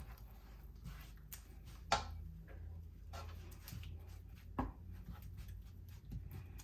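Ingredients frying in oil in a pan, with small scattered crackles and pops over a steady low hum. A utensil knocks against the pan twice, about two seconds in and again past the middle.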